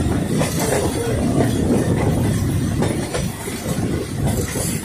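A passenger train running along the track, heard from an open window of the moving coach: a steady rumble and rattle of wheels on rails, with many short clicks.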